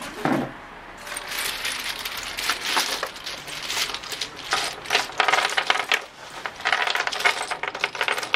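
Dozens of small black cylindrical lottery tokens clattering against each other and the wooden table as they are poured out of a cloth bag, coming in several surges of dense clicking.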